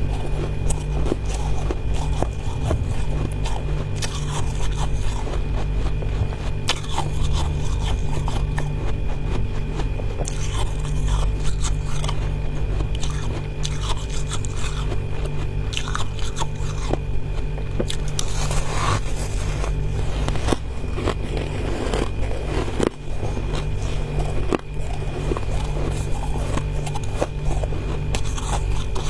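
Powdery freezer frost crunching as it is bitten and chewed, in many irregular crackly crunches, over a steady low hum.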